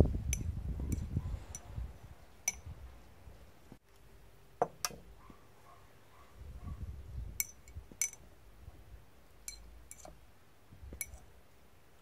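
A stirring rod clinking against the inside of a glass laboratory beaker as a heated acid solution is stirred: about a dozen light, sharp clinks at uneven intervals. A low rumble sits underneath near the start and again in the middle.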